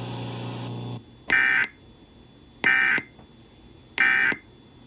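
Three short bursts of Emergency Alert System SAME data tones, the end-of-message code that closes the warning, each about a third of a second long and a little over a second apart. A steady radio hum cuts off about a second in, before the first burst.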